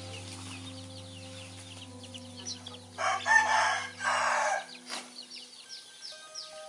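A rooster crows once, loud, about three seconds in, in two parts lasting about a second and a half. Soft background music with sustained notes runs under it and fades out soon after, while short high chirps come and go.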